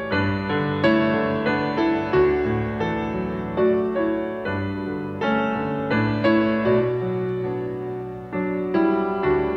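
Piano music: a slow melody of struck notes that ring and fade, over held low chords.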